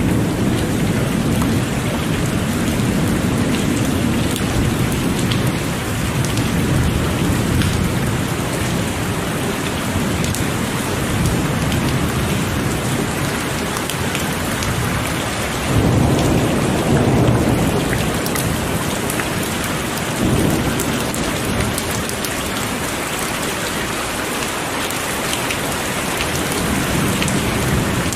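Heavy rain falling steadily with rolling thunder rumbling beneath it; the strongest roll of thunder swells about sixteen seconds in and a shorter one follows a few seconds later.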